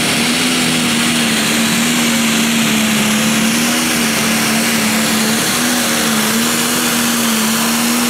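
Pro Stock pulling tractor's turbocharged diesel engine running flat out under full load as it drags the weight sled, holding one loud, steady pitch with a dense turbo and exhaust hiss over it.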